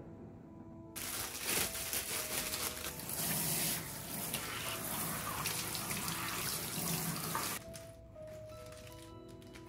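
Kitchen faucet spraying water onto a bunch of komatsuna leaves being rinsed in the sink. The water starts about a second in and shuts off abruptly near the end, leaving soft background music.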